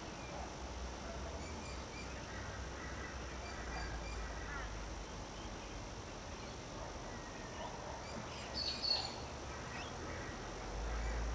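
Outdoor ambience: a low steady rumble with faint scattered bird calls, and one brief, sharper high call about nine seconds in.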